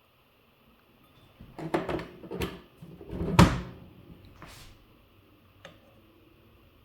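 A cluster of clicks, knocks and short scrapes from small parts being handled and fitted into the Kabolite K963 RC loader's track assembly, the loudest about three and a half seconds in, with one small click near the end.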